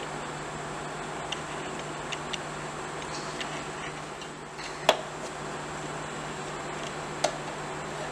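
Light clicks and taps of a stainless-steel mixer jar against drinking glasses as a thick milkshake is poured out, over a steady room hum; one sharper knock comes about five seconds in.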